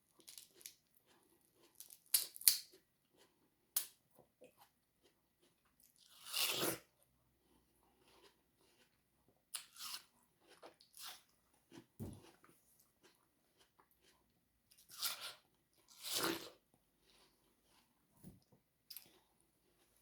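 Close-miked biting and chewing of watermelon: scattered crisp crunches and clicks, with a few longer bites of about a second each and short pauses between.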